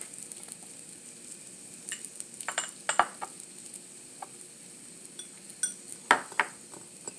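A utensil clinks and taps against a small dish about half a dozen times while a dipping sauce of soy sauce and sesame oil is stirred. The strikes are sharp and some ring briefly, over a faint steady sizzle from the hot grill pan.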